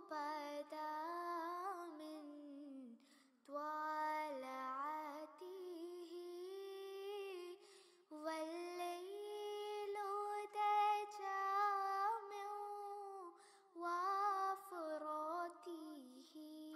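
A single high voice sings an Arabic nasheed unaccompanied, in long held, ornamented notes. It breaks off briefly for breath about three, eight and fourteen seconds in.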